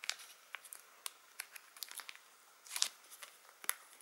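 Thin plastic wrapping crinkling and crackling as hands peel it from a small hard plastic charger case and handle the case, in scattered sharp crackles with a louder crinkle about three quarters of the way in.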